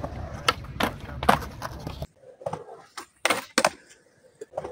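Skateboard rolling on concrete with a series of sharp clacks as the board's tail and wheels strike the ground. About two seconds in the rolling rumble stops abruptly, and more clacks follow over a quieter background.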